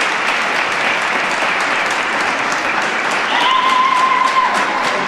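Audience applauding with dense, steady clapping after a figure skating program. About three seconds in, a steady high tone is held for about a second over the clapping.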